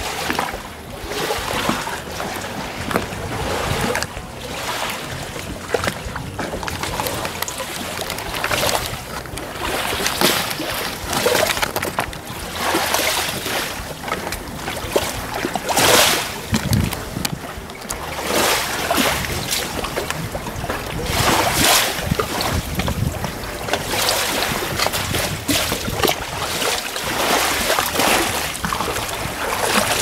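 Small sea waves lapping and splashing against the edge of a wooden jetty, in washes that come every two to three seconds.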